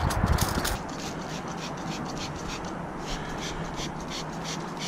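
Trigger spray bottle squirting water and baking-soda solution onto a pine board. About a second in, it gives way to a gloved hand rubbing the wet wood in quick, even scratchy strokes, about four a second.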